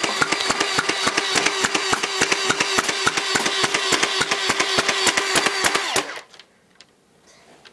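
Motorized Nerf blaster firing darts in rapid succession: a steady motor hum under fast, even clicking, several shots a second, which stops abruptly about six seconds in.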